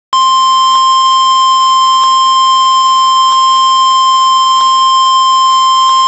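NOAA Weather Radio warning alarm tone: a single steady high tone of about 1050 Hz, held without a break. It signals that an urgent warning, here a flash flood warning, is about to be read out.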